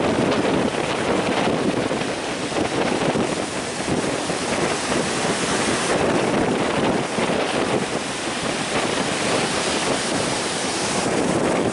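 Heavy surf crashing and rushing continuously, mixed with strong wind buffeting the microphone.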